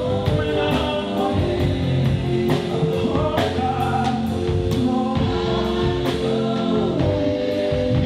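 Gospel worship song: voices singing held notes over instrumental backing with a steady drum beat.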